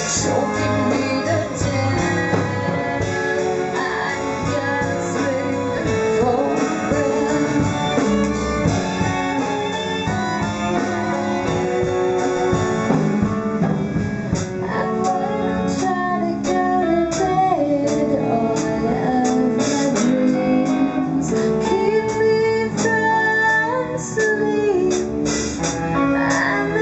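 A song playing throughout: guitar with a singing voice over it.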